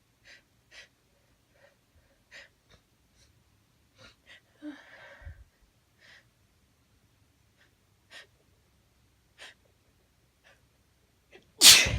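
A woman's short, sharp sniffs and breaths every second or two as chhinkni sneezing powder tickles her nose. Near the end they build to one loud sneeze.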